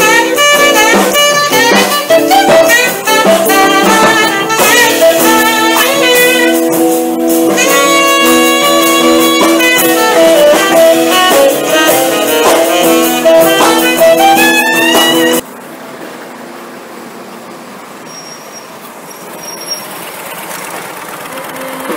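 Live jazz from a saxophone, guitar and upright double bass, the saxophone carrying the melody. About 15 seconds in the music cuts off abruptly and gives way to quieter street traffic noise.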